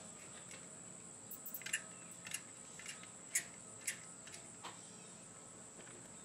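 Scattered small clicks from a zip-tie tensioning tool pulling a new tie tight around the silicone exhaust coupler, over a faint steady high-pitched hum.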